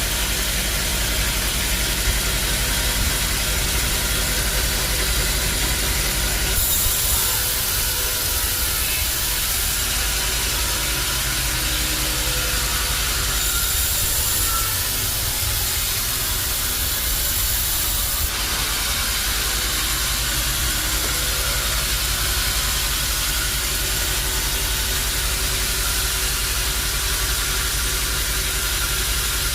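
Bandsaw sawmill machinery running with a steady low hum and hiss. About a quarter of the way in a brighter, higher hiss joins it and holds for about ten seconds, then stops.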